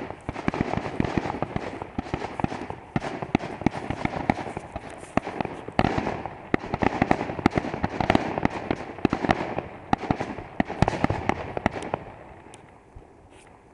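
Fireworks going off: a dense run of bangs and crackling from many overlapping aerial bursts, thinning to a few scattered pops near the end.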